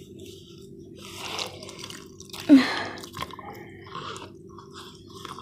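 Blue slime mixed with crushed floral foam being squeezed and kneaded by hand in a plastic bowl: irregular wet squelches and crackles, with one louder squelch that drops in pitch about halfway through.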